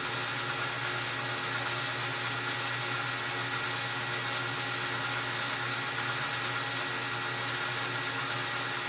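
Belt-driven metal lathe running steadily under power feed, taking a facing cut on a piston: a constant machine hum and whine with an even hiss.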